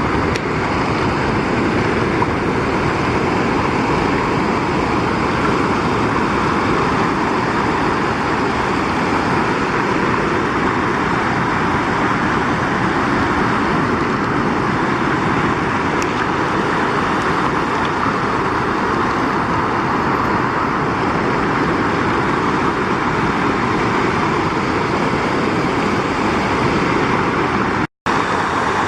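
Waterfall: water falling and rushing in a loud, steady noise without letup. It breaks off for a split second near the end.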